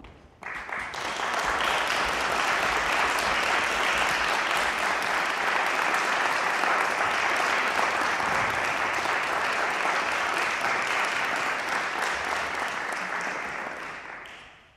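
Audience applauding, welcoming the performers onto the stage. It swells up within the first second, holds steady, and dies away near the end.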